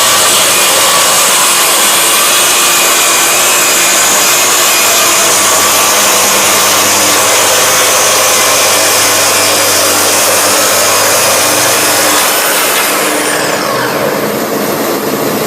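Festool HK 85 EB carpentry circular saw running steadily while cutting timber. Near the end it is switched off and its pitch falls as the motor winds down.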